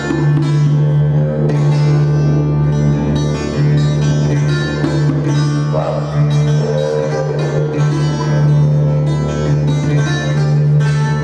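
Live string instrument music: a steady low drone under rapidly plucked, ringing notes.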